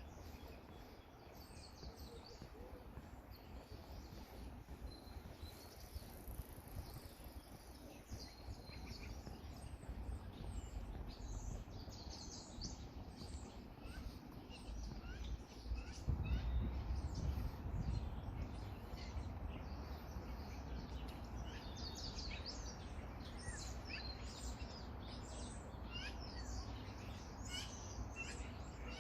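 Many small birds chirping in short, quick high calls, busier in the second half, over a low steady rumble that swells about halfway through.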